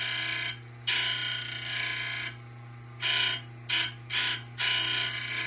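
Simington 451C chain grinder's wheel grinding a chainsaw cutter tooth in about six separate touches, each a high-pitched grinding screech, with longer grinds about a second in and near the end. Under them runs the steady low hum of the grinder's motor.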